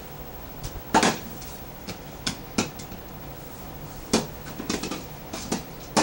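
A run of irregular sharp knocks and taps on a wood-laminate floor, about a dozen of them, the loudest about a second in and again near the end.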